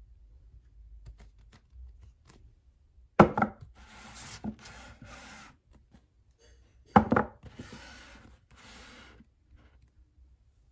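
Paperback manga volumes set down on a shelf with a sharp clack, then slid and pushed upright into place. It happens twice: about three seconds in and again about seven seconds in.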